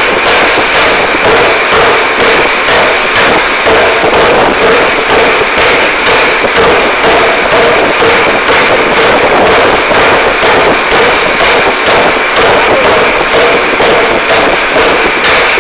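Air forging hammer pounding a red-hot workpiece on its anvil in rapid, even blows, about three a second, very loud.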